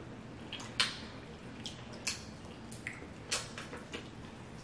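Close-miked eating of a seafood boil: wet smacks and squishes from chewing corn on the cob and picking apart shellfish by hand, about six short sharp ones scattered over a few seconds.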